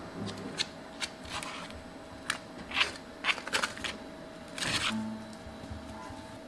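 Chocolate spread being piped and smeared onto a crepe: a clear plastic piping bag crinkling and scraping against the crepe in short, irregular rustles, with one longer rasp near the end, over a steady faint hum.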